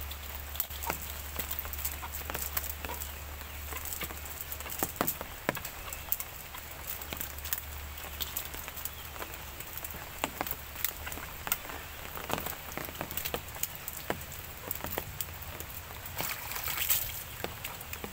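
Irregular wet taps and slaps: tilapia flapping on wet mud and being picked up and dropped into a metal bowl full of fish.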